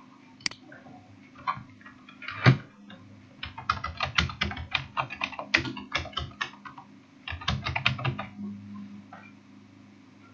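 Typing on a computer keyboard: a quick run of keystrokes, a short pause, then a second, shorter run, over a low steady hum.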